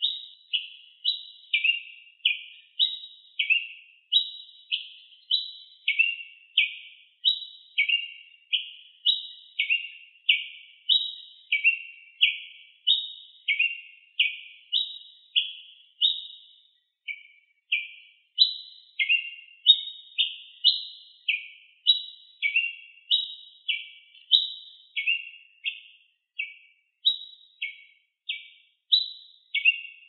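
Ruby-crowned tanager (tiê-preto) singing: a long, steady series of short, sharp notes, about two a second, alternating between higher and lower pitches.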